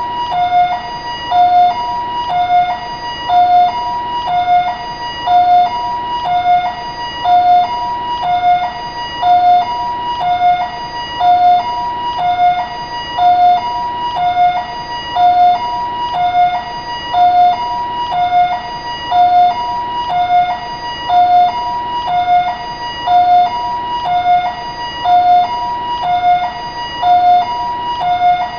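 Taiwanese ambulance siren sounding a steady two-tone hi-lo pattern, alternating between a lower and a higher tone about once a second.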